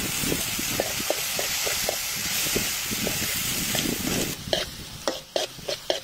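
Sliced onions and minced garlic sizzling in oil in a pan, stirred and scraped with a wooden spatula. Past four seconds the sizzle thins and the separate scrapes of the spatula stand out.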